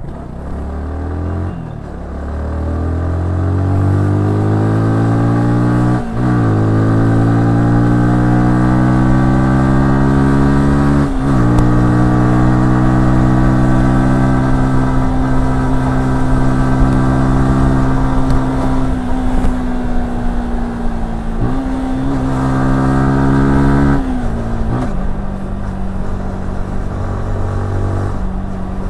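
Yamaha R15S motorcycle's single-cylinder engine pulling away from low revs, its pitch rising hard and dropping sharply at upshifts about six and eleven seconds in. It then holds a steady cruising note, and after a couple more quick breaks in the note near the end it settles at lower revs.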